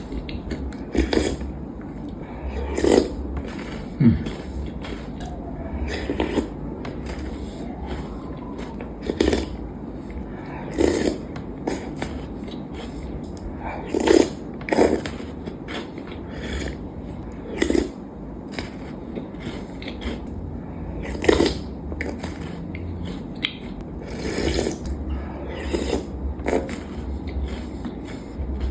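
Close-miked chewing of Ferrero Rocher chocolates, their crisp wafer shells and hazelnuts crunching in irregular bites every second or two.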